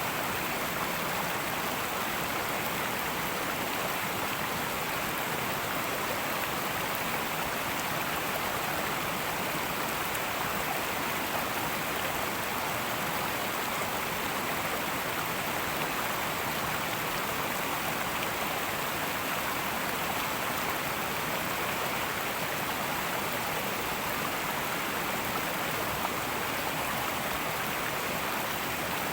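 Fast-flowing river water babbling and rushing in a steady, even stream.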